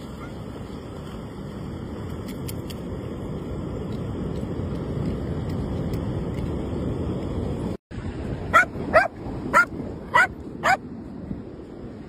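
Steady rush of surf and wind on the microphone, then after a brief cut a dog barks five times in quick succession, short sharp barks.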